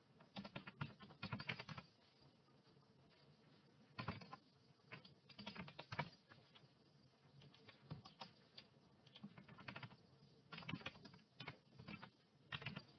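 Faint typing on a computer keyboard, in several short bursts of keystrokes with pauses between them.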